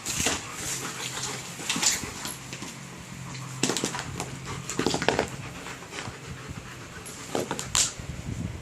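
German Shepherd dog making short whimpering sounds, several separate ones spread over the few seconds, over a steady low hum.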